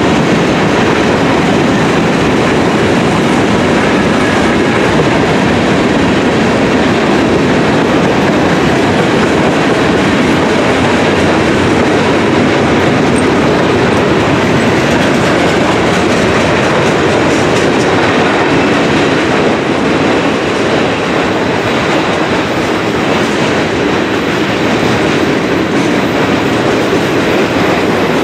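Freight train cars, covered hoppers and tank cars, rolling past close by: a loud, steady rumble of steel wheels on the rails, a little softer in the last several seconds.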